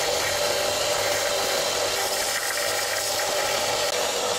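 Narrow-belt bench sander running steadily, its belt sanding the end of a round wooden handle piece pressed against it: an even hum with a sanding hiss.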